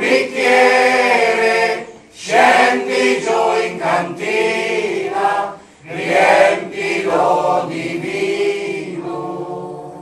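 Mixed choir of women's and men's voices singing together, in phrases broken by short breaths about two and six seconds in. The last held note fades away near the end.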